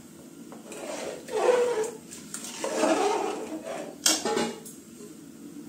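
Metal spatula stirring rice and water in a metal cooking pot, scraping and sloshing in two strokes, then knocking sharply against the pot about four seconds in.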